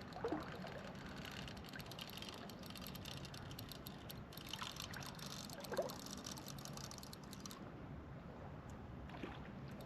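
Water trickling and lightly splashing, with a fine crackle that stops about three-quarters of the way through, over a low steady rumble.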